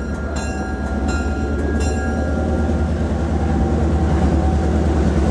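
A diesel locomotive's Leslie RS3L air horn sounds its last blasts over the first two seconds and then stops, leaving the steady low rumble of the passenger train rolling along the rails.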